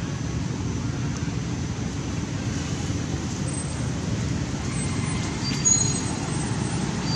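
Steady low rumble of outdoor background noise, with a few faint, short, high chirps about five to six seconds in.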